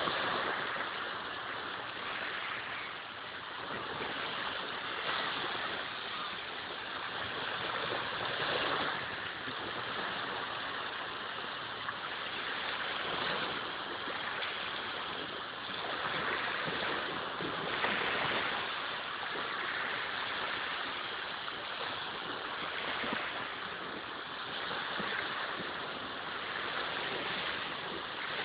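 Small sea waves breaking and washing up the shore, a steady rush that swells and eases every few seconds.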